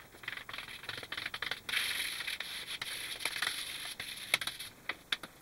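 Blue chalk rubbed and scraped across a blackboard in quick shading strokes, with scattered sharp taps against the board. The scraping is loudest in the middle and dies away near the end.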